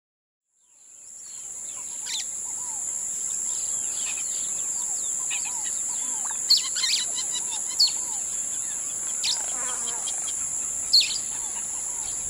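Jungle ambience fading in about a second in: a steady high insect drone with various birds calling over it. Several sharp, quick chirps stand out.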